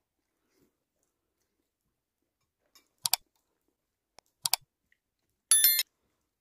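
Mostly quiet, then two short, sharp clicks about a second and a half apart, followed by a slightly longer, louder ringing clink, like metal or glass struck lightly.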